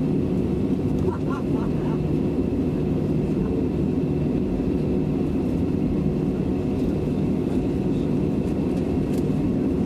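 Jet airliner's engines at taxi power heard from inside the passenger cabin: a steady low hum with a faint high whine over it.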